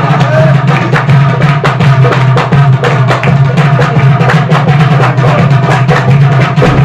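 Instrumental break in an Arabic song: drums beating a fast, even rhythm over a steady low bass line.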